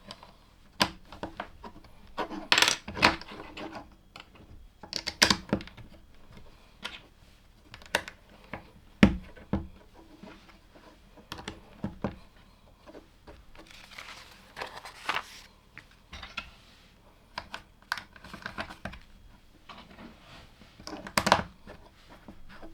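LEGO plastic pieces clicking and rattling as they are handled and pressed together, in irregular single clicks with a few short flurries of rattling pieces.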